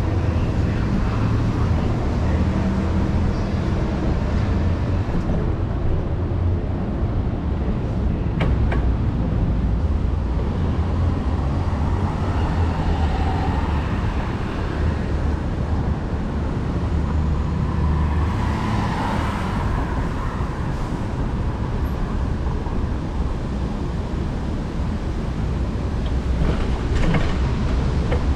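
Road traffic: a steady low rumble of passing cars and other motor vehicles.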